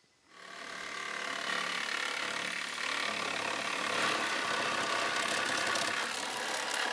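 A handheld power tool starts up and runs steadily, cutting through a car's sheet-steel door sill.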